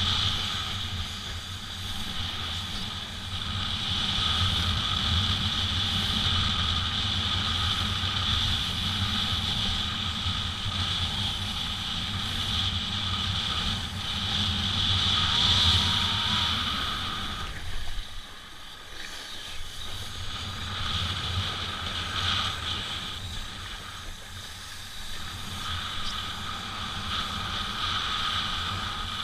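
Steady wind rushing over the microphone, mixed with water rushing under a kiteboard as it rides; the noise eases briefly about two-thirds of the way through.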